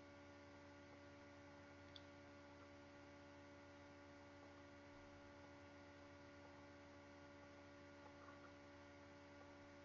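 Near silence with a faint, steady electrical hum, and one faint tick about two seconds in.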